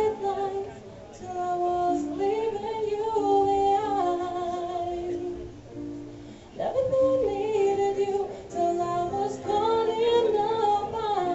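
A woman singing in long, gliding phrases over held chords from an accompanying instrument. Her first phrase fades out about six seconds in, and the next begins just after.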